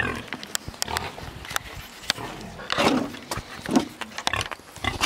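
A pig grunting a few short times as it walks, with scattered light clicks of steps on tarmac.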